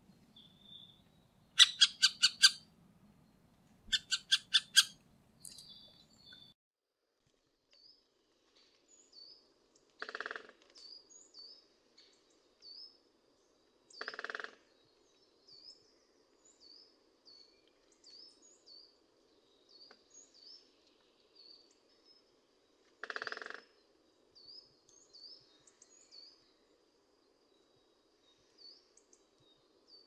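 Birds calling: two loud, rapid chattering series in the first five seconds, then many small high chirps repeated over and over, with three short harsh calls at about ten, fourteen and twenty-three seconds.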